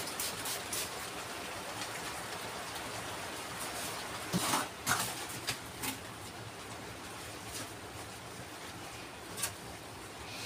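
Hand masonry work with mortar: a quick run of light taps at the start over a steady scratchy hiss, then several sharp knocks about four and a half to six seconds in as the mortar bucket is handled, and one more knock near the end.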